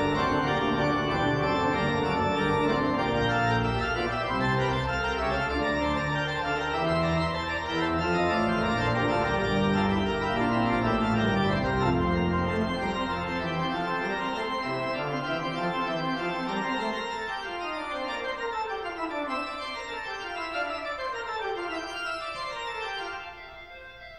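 Instrumental background music of held chords. The low notes drop out about halfway through, and it ends with a series of falling runs of notes before cutting off near the end.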